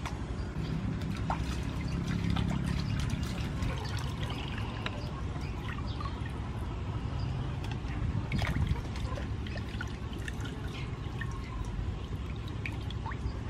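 Water splashing and trickling in a large metal basin as raw oxtail pieces are rubbed clean by hand and lifted out dripping, with many small splashes.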